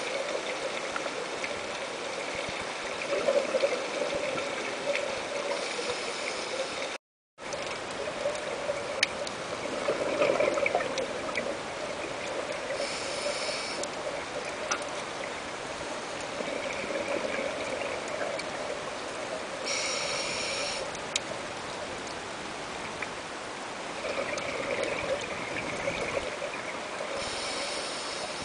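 Scuba regulator breathing heard underwater: four breath cycles about seven seconds apart, each with a short hiss and a gush of exhaled bubbles, over a steady watery hiss. The sound cuts out for a moment about seven seconds in.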